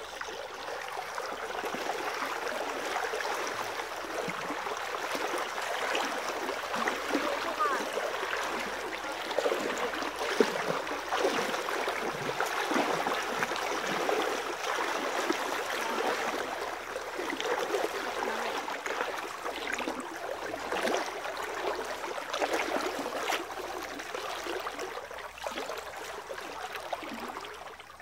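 Legs wading through thigh-deep stream water, a steady run of sloshing and splashing.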